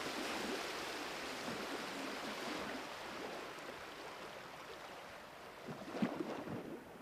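Water ambience: an even watery rush that fades a little, with a few louder splashy sounds about six seconds in.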